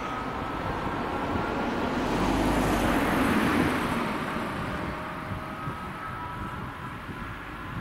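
Škoda Yeti car driving past, its engine and tyre noise swelling to a peak about three seconds in, then fading as it drives away.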